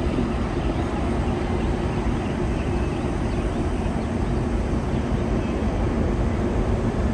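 Steady low mechanical drone of running machinery, with a faint constant hum in it and no change throughout.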